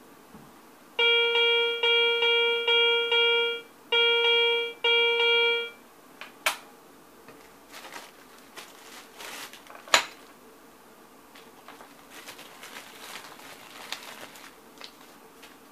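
Garrett ACE 350 metal detector sounding a target tone: about six short beeps, all at one steady pitch, in two quick groups as an item is swept past the coil. Then a couple of sharp clicks and some rustling as items are handled.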